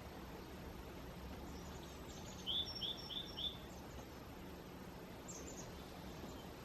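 Songbird calling a quick run of four chirps about two and a half seconds in, with fainter bird chirps before and after, over a steady low outdoor background noise.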